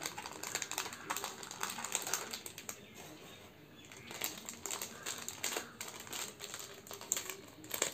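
Crinkling and crackling of a small shiny plastic packaging pouch and cardboard box being handled and opened by hand, in quick, irregular rustles.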